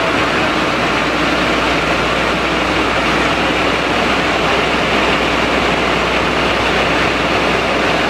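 Fire truck engine running steadily at the scene, a constant rushing noise with no change in level.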